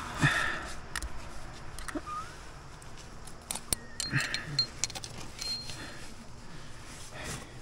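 Metal climbing gear clinking: carabiners and protection on the rack jingling and clicking as a carabiner is handled and clipped into a placement, with scattered sharp clicks and a short burst of rustling just after the start.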